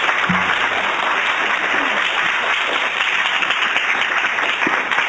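Lecture audience applauding steadily at the end of a talk.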